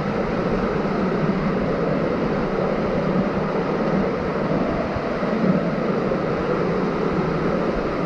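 A small waterfall splashing into a rock pool inside a narrow gorge: a steady rushing of water.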